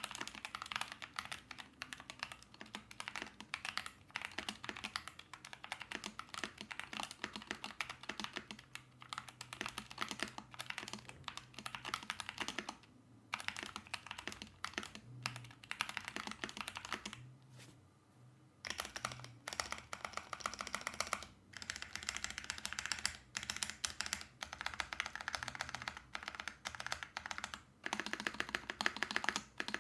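Typing on a Keychron V4 keyboard with lubed Feker Smokey tactile switches and doubleshot ABS cherry-profile keycaps, its case tape-modded, plate foam removed and a silicone pad inside. There are fast runs of keystrokes with brief pauses about 13 seconds and 17 seconds in.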